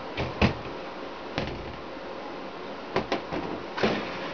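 Short knocks and clicks of compound bow parts being handled and set down on a hard work table while the outboard limb is taken off. There are about half a dozen, scattered, with the sharpest about half a second in and a cluster near the end.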